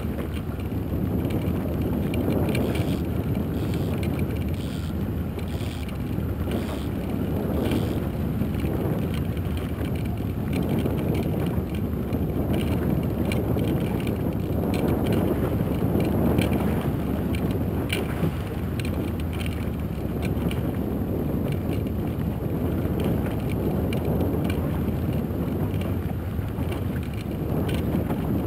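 Steady low running noise of a small aluminium boat under way at trolling speed, its small outboard motor running with wind buffeting the microphone.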